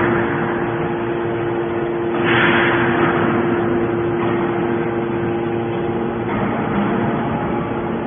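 Horizontal hydraulic metal baler running, its motor and pump giving a steady hum, with a louder hissing swell about two seconds in.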